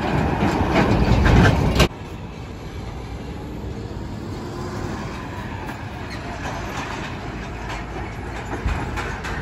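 Road traffic with heavy trucks: a container-hauling tractor-trailer passes close with a loud, low rumble that cuts off sharply about two seconds in. After that comes a steadier, quieter hum of passing cars and trucks.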